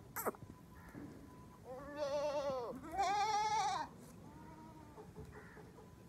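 Goat bleating: two loud, quavering bleats back to back about two seconds in, each rising and then falling in pitch, followed by a couple of fainter bleats.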